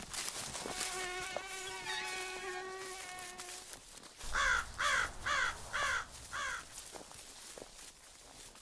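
A steady insect-like buzz at one pitch for about three seconds, then five short calls that fall in pitch in quick succession, like a bird calling.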